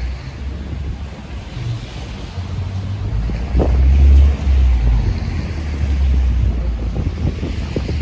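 Wind buffeting a phone's microphone in a snowstorm: a loud low rumble that swells strongest about three seconds in and holds for several seconds.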